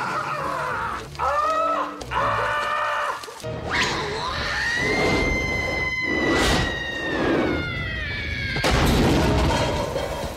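Film soundtrack: short repeated yells from men in freezing water, then one long high-pitched scream held for about four seconds and slowly falling in pitch, with a crash about six and a half seconds in, over film music.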